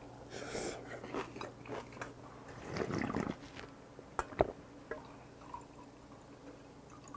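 Close-miked eating sounds: chewing a mouthful, then a longer slurp of broth about three seconds in, followed by a couple of sharp clicks just after.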